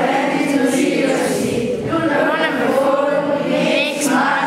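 A class of children chanting together in unison, many voices reciting rules in phrases, with short breaks between phrases.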